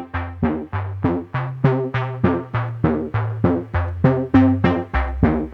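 Music: a quick run of plucked or struck notes, about three a second, each dying away, over a stepping bass line.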